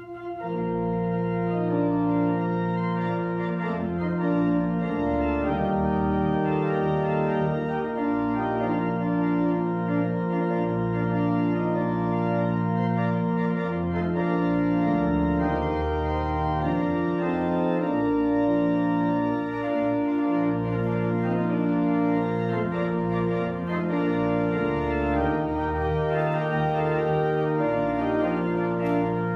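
Organ playing a slow postlude of long held chords over a bass line that moves every second or two, closing the worship service.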